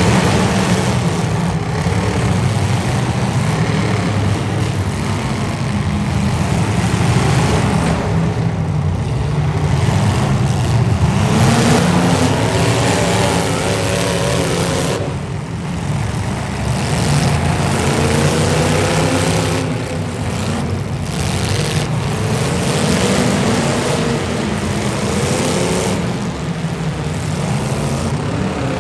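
Demolition derby cars' engines running loud and revving, their pitch climbing and dropping again and again, with several engines overlapping.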